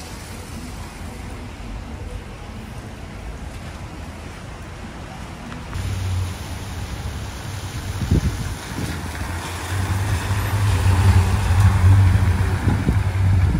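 Steady low background, then about six seconds in a Ford ambulance drives slowly past: engine running and tyres hissing on wet pavement, growing louder as it comes close near the end.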